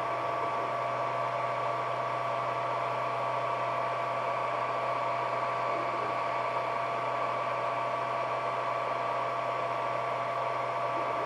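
Ender 3D printer running, its cooling fans giving a steady whir with a constant high whine and a low hum.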